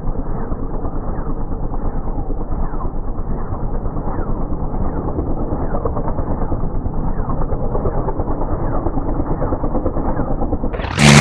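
Bell 47G helicopter hovering low, its two-bladed wooden main rotor beating rhythmically over the steady drone of its piston engine. Loud music cuts in abruptly near the end.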